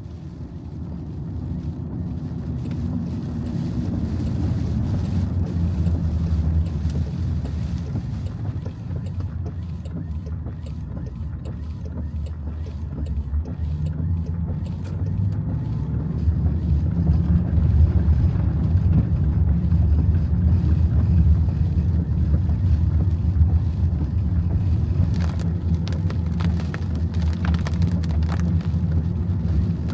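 A vehicle driving, a steady low rumble of engine and road noise that swells over the first few seconds.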